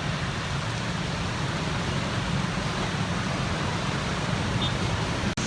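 Steady rushing noise of heavy rain and traffic on a waterlogged road, with a low rumble underneath; it breaks off for an instant near the end.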